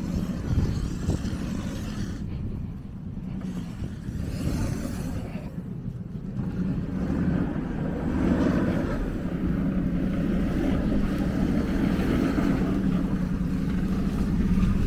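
Steady low rumble of a motor vehicle's engine running, with a hum that grows louder about halfway through, mixed with wind noise on the microphone.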